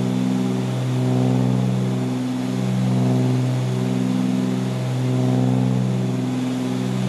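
A twin-engine Cessna 310Q's two piston engines and propellers running steadily at climb power. The drone swells and fades about once a second, the beat of two propellers turning at slightly different speeds.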